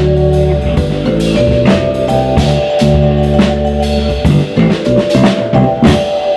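Live trio of vibraphone, electric bass and drum kit playing: ringing vibraphone notes struck with mallets over held bass notes and a steady drum beat. In the second half the bass breaks up and the drum hits stand out more.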